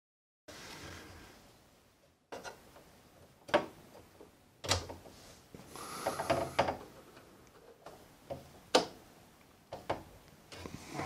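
Screwdriver turning the metal retaining screws of a mixer expansion card: scattered sharp metal clicks and scraping, with a busier stretch of scraping and clicking in the middle.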